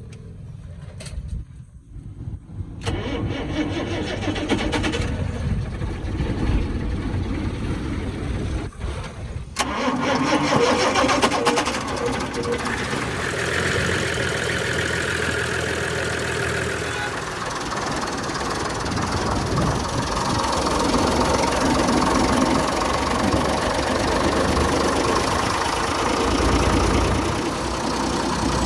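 Truck diesel engine starting up after a crankshaft repair: it turns over for several seconds, fires about ten seconds in, and runs on steadily.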